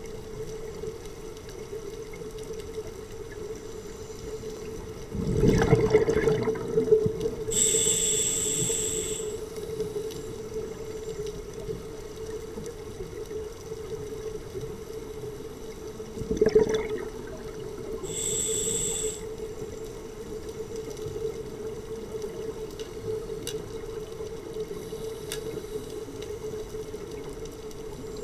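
Scuba diver breathing through a regulator underwater. Twice, a loud gurgling rush of exhaled bubbles is followed a moment later by the high, whistling hiss of an inhalation through the demand valve. A steady low hum runs underneath.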